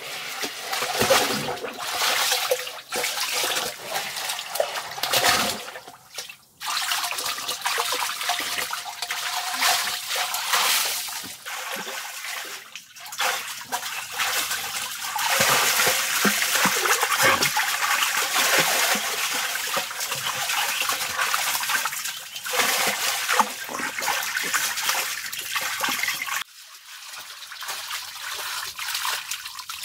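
Pool water splashing and sloshing as someone swims, with water trickling. It changes abruptly twice, near a quarter of the way in and near the end, and settles to a quieter trickle in the last few seconds.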